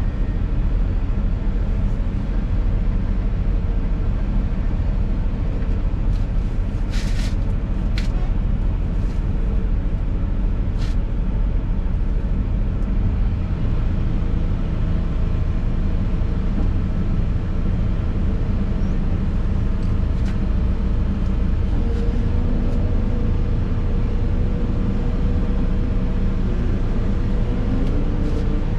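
Excavator's diesel engine running steadily, heard from inside the cab, with a few sharp clanks about a third of the way in. A whine that changes pitch comes in near the end.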